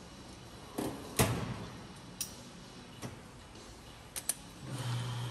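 Scattered clicks and knocks of tools being handled, the loudest about a second in and a quick double click near the end, then a steady low hum starts just before the end.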